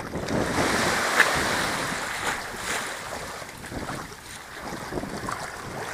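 Sea surf washing in and drawing back, with wind buffeting the microphone. The surf swells in the first second or so, eases off, then rises again near the end.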